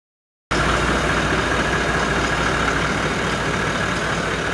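Toyota LandCruiser 79 Series diesel engine running steadily, cutting in suddenly about half a second in.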